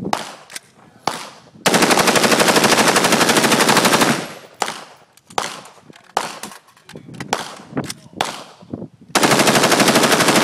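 UDMC PVAR 5.56mm M4-type rifle firing on full automatic: a long, rapid burst of about two and a half seconds starting near two seconds in, and another starting about a second before the end. Scattered single shots and short bursts fall before and between them.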